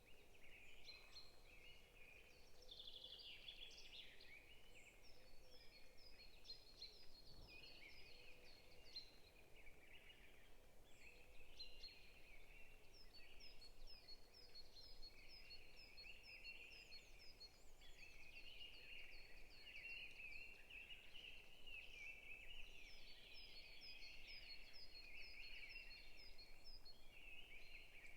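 Faint chorus of forest songbirds chirping and singing over one another, with several runs of quick, evenly repeated high notes.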